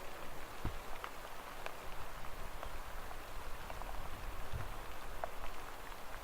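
Summer rain falling steadily, with many individual drops pattering and ticking. A low rumble comes in for a few seconds mid-way.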